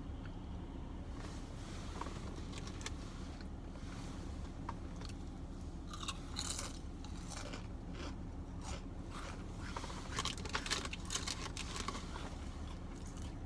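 Close-up eating sounds: biting into and chewing a sandwich, with moist clicks and crackles that come thickest from about six seconds in, loudest around ten to eleven seconds. A steady low hum runs underneath.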